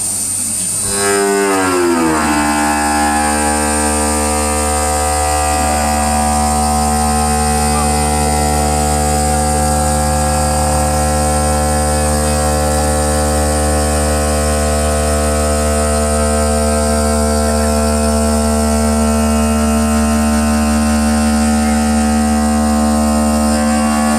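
CNC stone cutting and polishing machine running with a steady, many-toned machine hum. Its pitch drops during the first two seconds, then holds steady.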